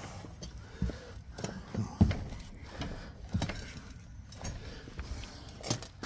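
A bunch of keys on a ring jangling, with scattered small clicks and knocks, the loudest about two seconds in.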